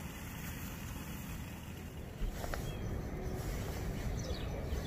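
Spirit (alcohol) stove burning under a pot with a steady low rushing hiss. About two seconds in, a few knocks and clicks from handling come in over it.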